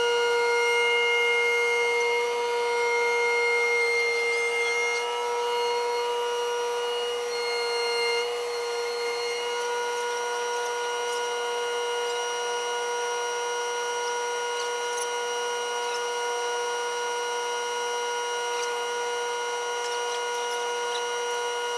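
Cat skid-steer loader running at steady revs while holding a load, giving a steady high-pitched whine made of several held tones that eases slightly after about eight seconds.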